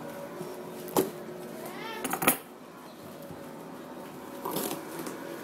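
Cardboard hat box handled on a table: a sharp knock about a second in, a short rising squeak, then a louder bump a little after two seconds, with a lighter scrape of the box flap near the end.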